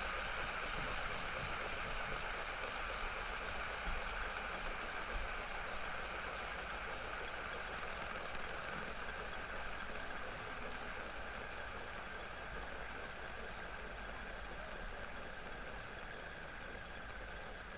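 Three fidget spinners spinning together on a tabletop, a gold two-blade metal spinner, a classic three-blade spinner and an aluminium spinner, giving a steady whirr from their bearings that slowly grows fainter as they lose speed.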